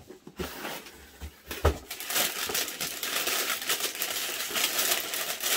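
A few light knocks from a cardboard shoebox, then tissue-paper wrapping rustling and crinkling steadily from about two seconds in as it is pulled out of the box.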